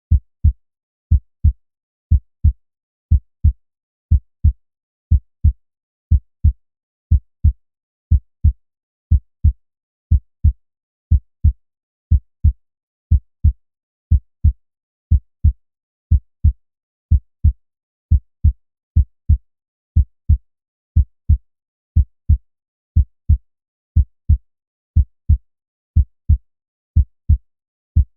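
Normal human heart sounds heard through a stethoscope: a steady lub-dub, the first (S1) and second (S2) heart sounds as pairs of low thuds, roughly one pair a second, with a regular rhythm.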